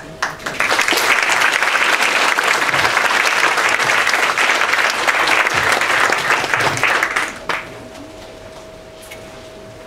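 Audience applauding a reading, rising within the first second, holding steady and dying away about seven and a half seconds in.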